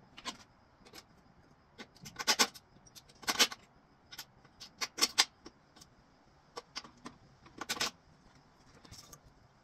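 Intermittent sharp clicks and light metallic clinks from small hardware being handled by hand, some single and some in quick clusters, every second or two.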